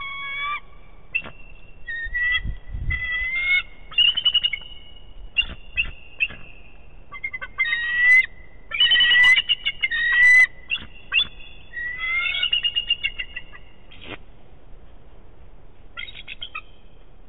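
Bald eagles calling: runs of high, thin chittering and whistled notes in short bursts, some held and gliding slightly, that pause after about 14 s and return briefly near the end. A few sharp clicks come in the middle.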